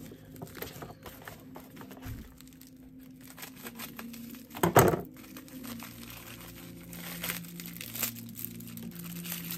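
Plastic packaging crinkling and rustling as a package is handled and torn open, in irregular small rustles with one louder burst a little under five seconds in.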